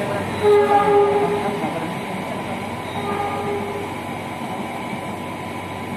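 A train horn sounding twice: a steady blast about half a second in, then a fainter one about three seconds in, heard from inside a passenger car over a steady background hum.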